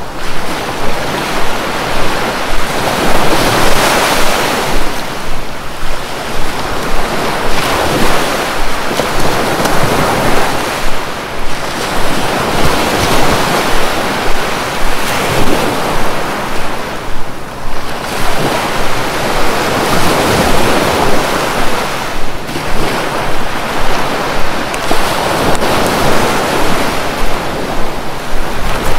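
Sea surf breaking on the shore: a loud, continuous wash that swells and ebbs every few seconds as waves come in, with wind buffeting the microphone.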